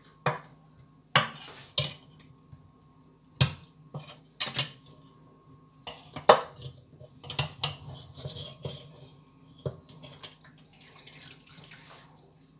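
Metal utensils clinking and knocking against a cooking pot and dishes in irregular strikes, about a dozen of them with the loudest about six seconds in, as cooked chicken is lifted out of the pot.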